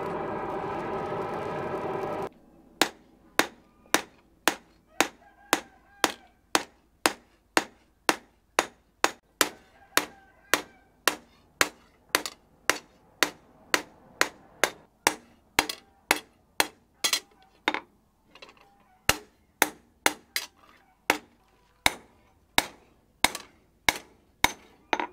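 Steady whir of the charcoal forge's air blower, which cuts off about two seconds in. Then a hand hammer beats an old saw blade, being forged into a curved hooked knife, on a steel post anvil: sharp ringing clangs at about two blows a second, with one short pause near the end.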